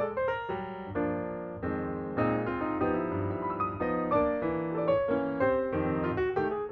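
Background music: a piano tune played at a lively pace, with a bass line under it.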